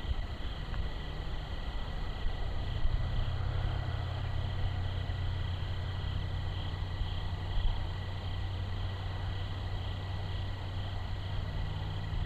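Night insects chirring in a steady pulsing chorus over a constant faint high whine. A low drone swells in a few seconds in and eases off near the end.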